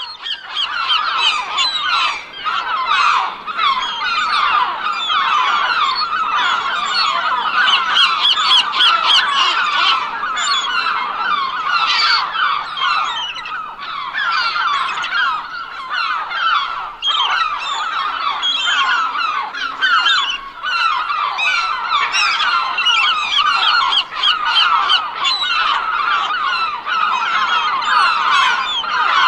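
A flock of seagulls calling all at once: many overlapping squawks and cries forming a continuous dense chorus.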